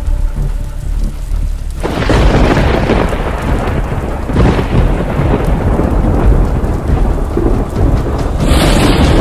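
Thunderstorm: a low rumble of thunder, then heavy rain hissing that comes in suddenly about two seconds in, swelling again near the end.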